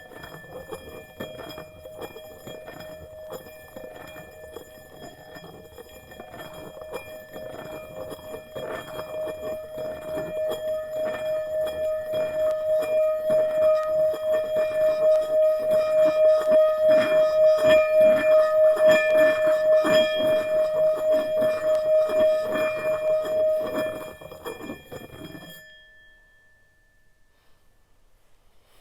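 Metal Tibetan singing bowl played with a wooden mallet, one steady hum with higher overtones that swells and pulses in loudness, the mallet's scraping audible along with it, as if circled around the rim. It stops abruptly about 24 seconds in, leaving a short ring that fades out.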